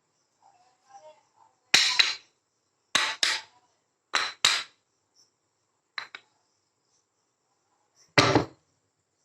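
Marbles knocking against a handmade run of rain gutter and wooden rail: sharp clicks, often in quick pairs, spaced a second or two apart, with a heavier, deeper knock near the end.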